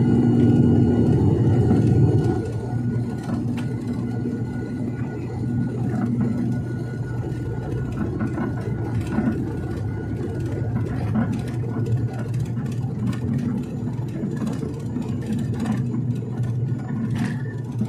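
Turboprop airliner's engines and propellers droning steadily, heard from inside the cabin as the aircraft rolls along the runway. The drone drops in level about two seconds in, and scattered faint clicks come through later.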